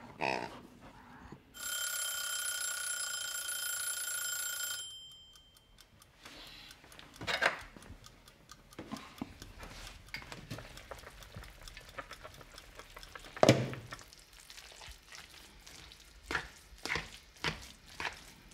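A bell rings steadily for about three seconds near the start. Then come the clicks and knocks of kitchen work with knife and bowl: one loud knock about halfway through and a run of quick clicks near the end.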